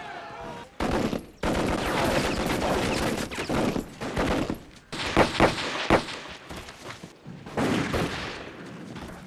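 Staged film battle soundtrack: volleys of gunfire in irregular bursts, with several sharp, loud shots about five to six seconds in.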